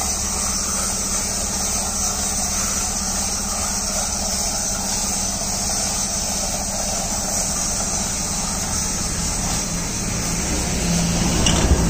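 A machine running steadily: a constant low hum under an even hiss, growing slightly louder near the end.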